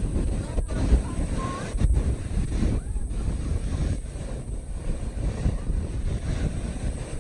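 Wind buffeting the microphone in uneven gusts, over the steady wash of surf breaking on the beach.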